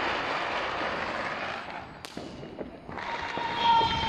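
Fireworks going off overhead: a wash of crackling in the first two seconds, then one sharp bang about two seconds in. A steady high tone starts about three seconds in and sinks slightly in pitch.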